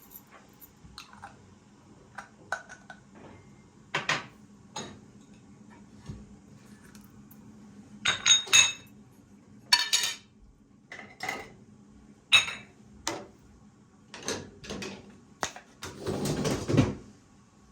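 Kitchen dishes and utensils being handled: scattered clinks and knocks, a few with a short ringing tone, and a longer scraping sound lasting about a second near the end.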